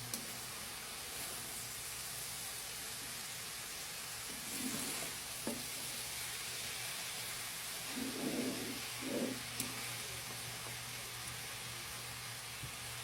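Vegetables frying in a pan with a steady sizzling hiss, and a few brief stirring sounds about a third of the way in and again past the middle.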